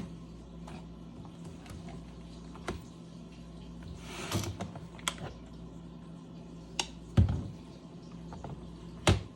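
Scattered taps and clicks from handling and pressing a LeapFrog 100 Animals electronic book, with a short rustle near the middle and a heavier dull thump about seven seconds in, over a faint steady low hum.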